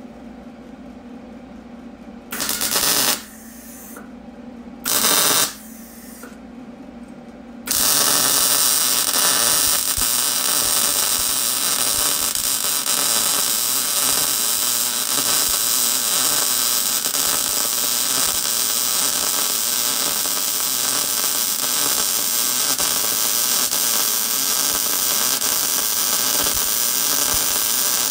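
110-volt MIG welder running .023 wire on 3/16-inch plate at its maximum setting: two short arc bursts of under a second each, then, about eight seconds in, a long continuous weld bead that holds steady from then on.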